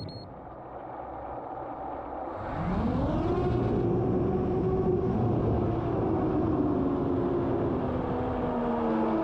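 FPV quadcopter's motors and tri-blade propellers spinning up. The low hum climbs sharply in pitch about two and a half seconds in, then settles into a steady buzzing whine that wavers in pitch. A short high beep sounds at the very start.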